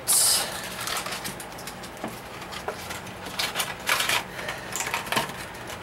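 Plastic toy packaging being handled: a brief loud rustle, then scattered light clicks and taps.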